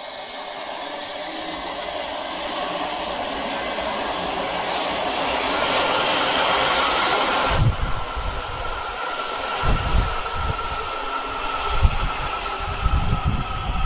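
Washington Metro 7000-series subway train pulling into an underground station. A rumble of wheels on rail grows louder as it approaches. From about eight seconds in, the cars pass close by with heavy low thumps of wheels over the track and a steady high whine as the train slows.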